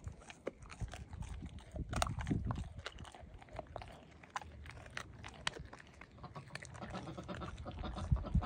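A German Shepherd chewing raw deer meat: irregular crunches and clicks of teeth on meat.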